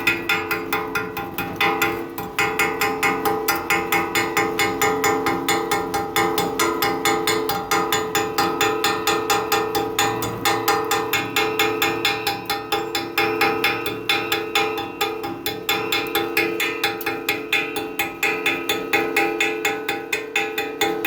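Background music with a steady, quick beat of about four clicks a second over sustained tones.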